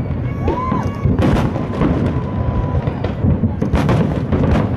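Aerial firework shells bursting in a dense, continuous barrage of deep booms, with sharp cracks layered on top. A short whistle rises and falls about half a second in.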